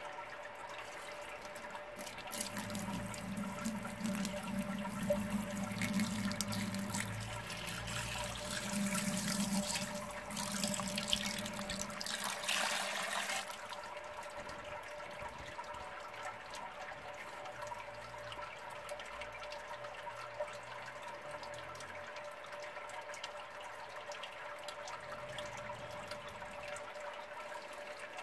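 Water poured from a plastic jug into a Grainfather's stainless steel grain basket, splashing onto the perforated plate and draining through. The pour starts a couple of seconds in and stops sharply about halfway through, leaving a quieter trickle. A faint steady hum runs underneath.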